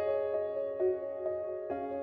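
Background music: soft keyboard notes, piano-like, changing every half second or so.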